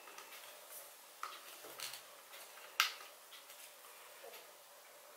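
Small plastic clicks and taps from handling the bottom cap and body of a Philips Sonicare DiamondClean electric toothbrush handle, with one sharper click a little under three seconds in.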